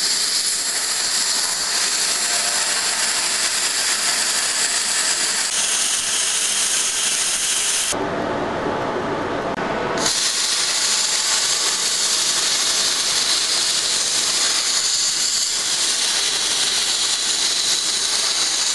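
Plasma torch on a portable CNC cutting machine cutting sheet metal, a loud steady hiss. The hiss breaks off for about two seconds just past the middle, replaced by a lower, rougher noise, then starts again as the torch cuts corrugated galvanised sheet.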